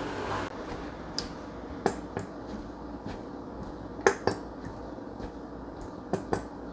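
Red sauce squeezed from a plastic squeeze bottle onto a glass saucer: a scatter of short sharp clicks and spurts, several in quick pairs, over a steady background hum.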